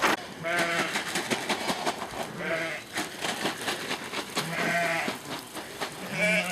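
A flock of ewes and lambs bleating: about four wavering calls spread across the few seconds, some deeper and some higher-pitched.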